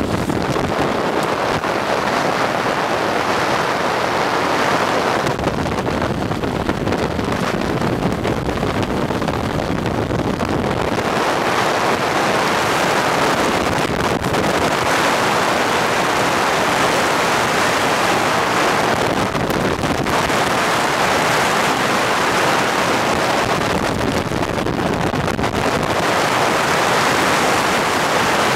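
Wind rushing over a microphone moving at downhill speed, mixed with the hiss of wheels on wet asphalt. The rush swells and eases every few seconds.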